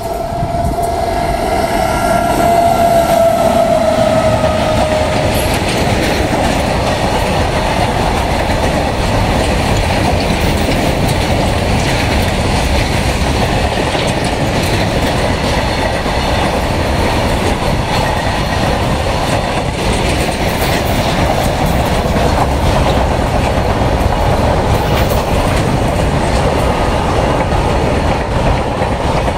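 An Indian Railways WAG-9 electric locomotive's horn sounds for about five seconds as the freight train approaches, its pitch dropping slightly as it fades. It is followed by the steady rumble and clickety-clack of loaded covered goods wagons running past at speed over the rail joints.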